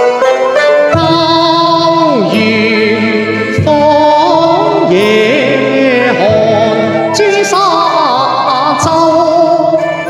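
A male voice sings a Cantonese opera (yuequ) aria with wide vibrato and sliding pitches, over a traditional Chinese instrumental accompaniment.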